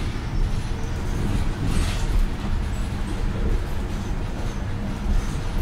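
Cabin noise of a New Flyer XDE40 diesel-electric hybrid city bus in motion: a steady low rumble from the drivetrain and road, with a brief hiss about two seconds in.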